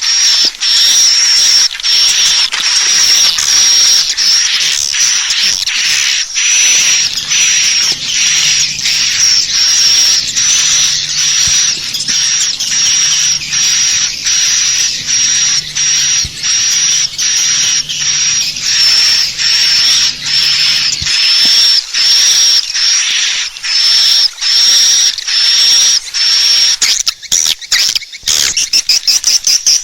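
Swiftlet calls: a rapid, unbroken run of short, high chirps, about two a second, played as a lure call to draw swiftlets into a nesting house.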